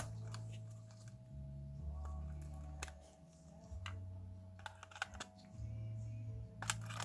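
Scattered light clicks and taps, like small tools and parts being handled during close-up repair work, over music with a low bass line that steps from note to note.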